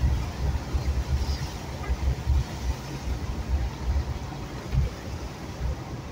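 Car driving slowly through a flooded road, heard from inside the cabin: an uneven low rumble with a steady hiss above it.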